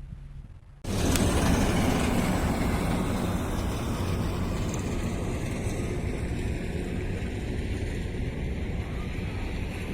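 Strong wind buffeting the microphone: a loud, gusty rumble and rush that starts abruptly about a second in, over a faint low hum before it.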